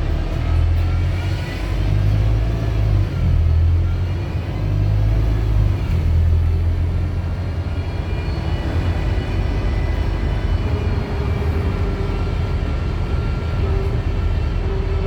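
Wright StreetDeck double-decker bus's Mercedes OM934 four-cylinder diesel and drivetrain running under way. A low engine drone swells and drops over the first six seconds while whines glide up and down with it, then the drone settles and a steadier whine holds.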